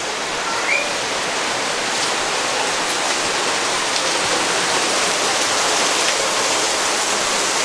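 Steady rushing hiss of falling water, growing slightly louder over the first couple of seconds.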